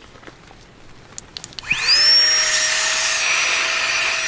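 A Flextail Tiny Pump 2X mini electric air pump switching on after a few light clicks. Its motor spins up in a fraction of a second to a steady high whine with rushing air as it inflates a vinyl beach ball.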